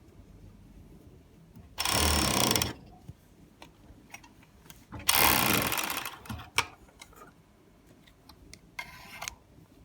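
Four-thread overlock sewing machine running in two short bursts of about a second each, with small clicks and handling sounds between them.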